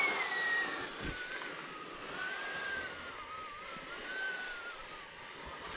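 Air escaping from the open valve of a queen-size air mattress: a steady hiss with a whistling tone that falls in pitch over the first two seconds, then wavers as the bed deflates.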